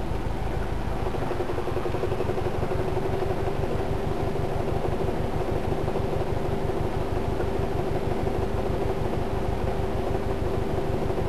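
Car engine running with a fast, even knocking: the early stage of an abnormal knock that began right after the car had been driven.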